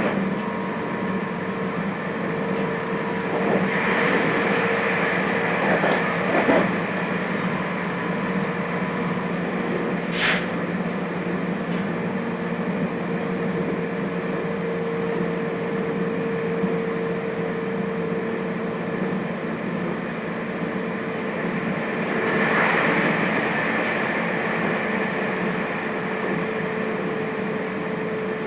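JR Hokkaido 721 series electric multiple unit running, heard inside its motor car: a steady hum of several fixed tones from its thyristor phase-controlled traction equipment over the rumble of wheels on rail. The running noise swells twice, about four and about twenty-two seconds in, and a short sharp hiss cuts through about ten seconds in.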